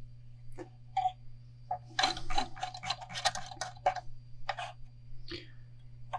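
Small ticks and scratches of hand-wrapping metallic thread on a fishing rod blank: fingernail packing the thread and the rod being turned by hand. A dense run of quick ticks comes about two to four seconds in, with single ticks before and after.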